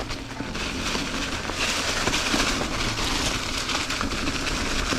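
Ibis Ripmo V1 mountain bike rolling fast downhill over a leaf-covered, rocky trail: steady tyre noise with rattling and small clicks from the bike, a little louder from about a second and a half in.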